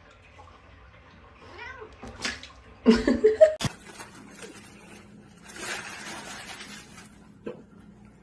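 A domestic cat meowing and yowling in a few short wavering calls, the loudest about three seconds in. After a sudden cut, a plastic snack bag crinkles for a second or two.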